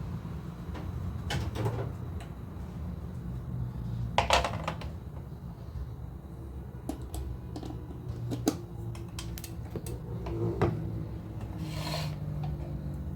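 A few sharp knocks and some rubbing from things being handled, the loudest knock about four seconds in, over a steady low rumble.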